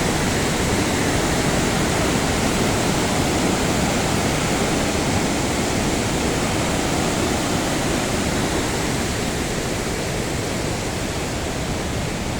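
Rushing river water, a loud steady roar of rapids.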